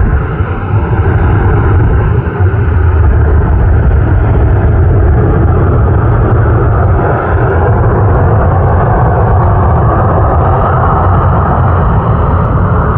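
Boeing 737 MAX 8's CFM LEAP-1B jet engines running at high power as the airliner departs: a loud, steady roar.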